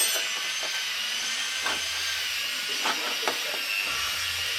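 Steady high whine of a power tool running without a break, with a few faint knocks.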